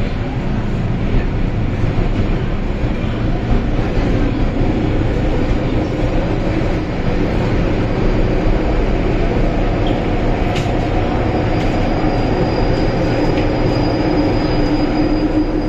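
Cabin noise of a Metro-Cammell M-Train running through a tunnel: a loud, steady rumble of wheels and running gear. A thin high-pitched whine joins about twelve seconds in.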